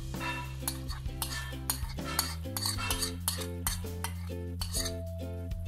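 Metal spoon scraping thick paste out of a glass blender jar into a pan, with repeated clinks of the spoon against the glass. Background music with sustained low notes and a repeating pattern plays throughout.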